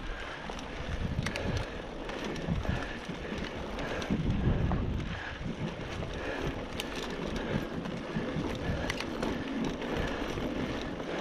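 2016 Giant Trance 2 full-suspension mountain bike riding fast down dry dirt singletrack: tyres rumbling over the dirt, with scattered sharp clicks and rattles from the bike, and wind buffeting the microphone.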